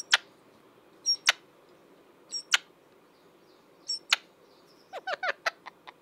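Young green parakeet giving short, sharp squawks, mostly in pairs spaced about a second and a half apart, then a quick run of several calls near the end, while it nips at a hand in play-fighting.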